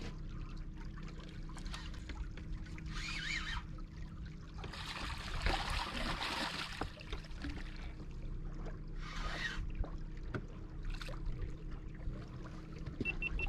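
Steady low hum of a boat's motor under water lapping and trickling against the hull, with a louder rush of water about five to seven seconds in.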